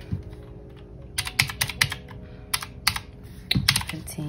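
Clicky round keys of a retro typewriter-style calculator being pressed to add up a sum, about ten key presses in short quick runs starting about a second in.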